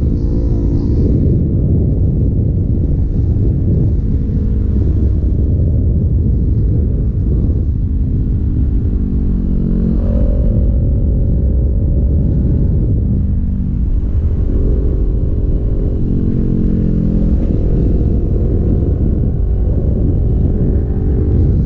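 Sport motorcycle engine running at road speed in fifth gear under heavy low wind rumble. The engine note rises and falls several times as the throttle changes through the curves.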